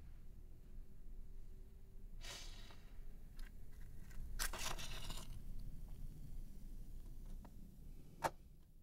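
Quiet handling of small objects: two short rustling, scraping bursts, a few light clicks, then one sharp click near the end.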